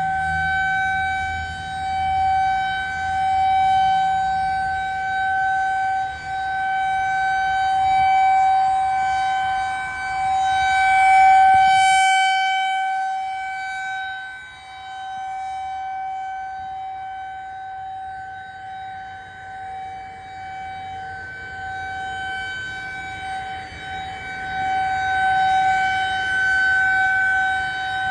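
Federal Signal 2001-SRN rotating outdoor warning siren sounding a steady, unwavering tone during a test. Its loudness swells and fades about every four seconds as the rotator turns the horn toward and away from the listener.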